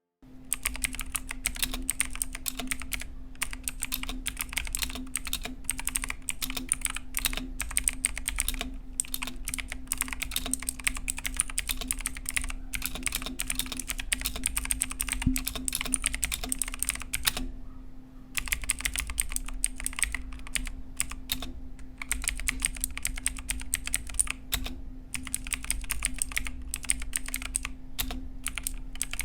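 Fast, continuous typing on a Zet Blade mechanical keyboard with clicky Kailh Blue switches, a dense run of sharp key clicks with a break of about a second just past the middle. Its aluminium plate gives what the owner calls an unpleasant metallic ring when typing.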